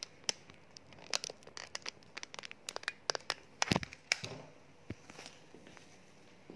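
Handling noise of a phone being picked up and moved: a rapid, irregular run of clicks, rubs and knocks right on the microphone for about four seconds, loudest near the end of the run, then dying down.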